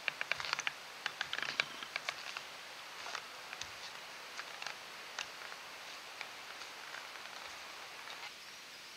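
Feet of walking stilts crunching in crisp snow, a quick run of sharp crunches at first, then sparser and fainter as the walker moves away.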